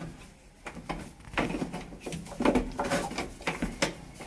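A series of irregular clicks and knocks from parts being fitted by hand into a washing machine's drive mechanism, about half a dozen over a few seconds.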